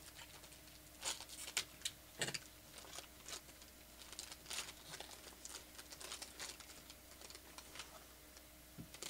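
Foil trading-card pack wrapper crinkling faintly as it is torn open along its seam, a scatter of soft crackles with a few sharper ones one to two seconds in. Near the end the cards are slid out with a light click.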